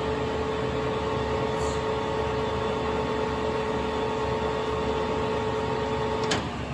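Harrison M-400 lathe's headstock gearing running under power with a steady whine, sounding really nice, which is taken as a sign of gears that are not worn. Near the end there is a sharp click and the whine cuts off.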